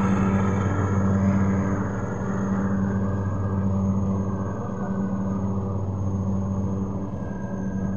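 Husqvarna TC 114 riding lawn mower's single-cylinder 452 cc petrol engine running at a steady speed as the mower drives away, its sound growing duller and a little quieter from about halfway through.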